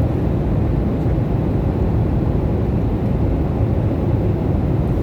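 Steady low rumble of a passenger airliner's engines and rushing air, heard inside the cabin.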